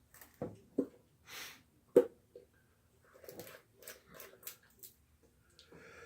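Glue squeezed out of a plastic bottle: a few short, separate squelches and sputters as glue and air are forced out, with a soft hiss about a second and a half in.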